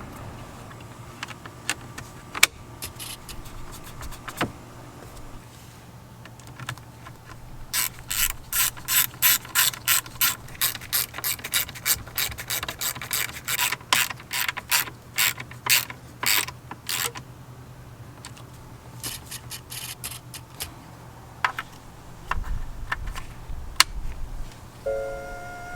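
Quarter-inch hand ratchet clicking in quick runs, about three clicks a second, as fasteners are turned, with a few scattered clicks before the runs start.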